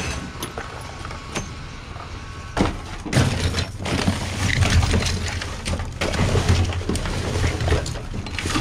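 Gloved hands rummaging through trash in a dumpster: plastic bags, cardboard boxes and loose debris rustling, shifting and knocking. It is light at first and grows loud and busy about two and a half seconds in, over a low rumble.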